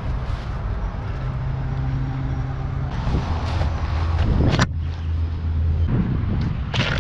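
Small boat's outboard motor running with a steady low hum, broken by a few sharp knocks around the middle and near the end.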